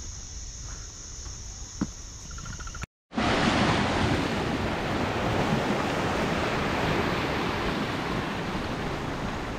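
Insects drone on a steady high note, with a few footsteps, until an abrupt cut about three seconds in. Then small waves wash and break over a coastal rock shelf in a loud, steady rush of surf.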